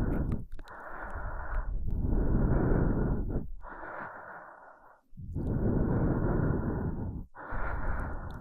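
Close-miked human breathing: a steady run of slow breaths in and out, each lasting one to two seconds with short pauses between, about five in all.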